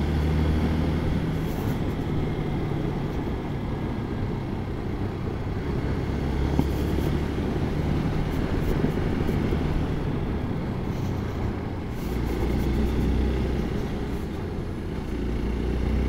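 Hero XPulse 200 4V's single-cylinder engine running steadily while riding, under heavy wind and road noise on the phone microphone. The engine note shifts lower about twelve seconds in.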